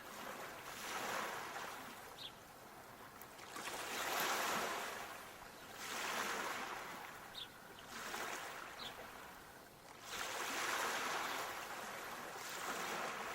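Small sea waves washing onto a shore, a hissing surge that swells and ebbs every two to three seconds.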